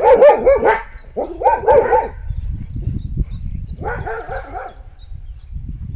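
Dog barking in quick, high, yelping barks, in three bursts, with a low rumble underneath.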